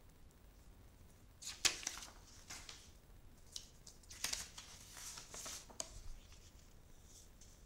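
Sheets of paper rustling and sliding as they are handled. There are a few short rustles, the loudest about a second and a half in, then a longer stretch of rustling from about four to six seconds in.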